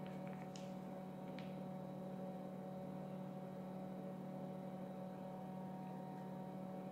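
Steady low electrical hum, with a few faint clicks in the first second and a half.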